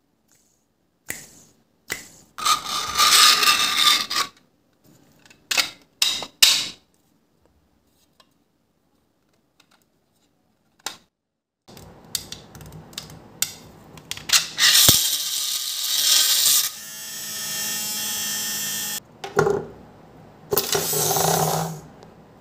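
Small brushed DC hobby motor spinning a 3D-printed plastic auger inside a printed plastic barrel. It runs in loud bursts through the second half, with a steady hum for about two seconds in the middle of that stretch. Plastic parts scrape and click in short bursts in the first few seconds.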